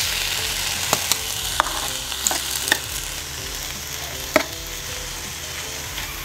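Spam slices and kimchi sizzling steadily in a frying pan, with several sharp clicks of metal chopsticks against the pan as the kimchi is stirred, the loudest about four seconds in.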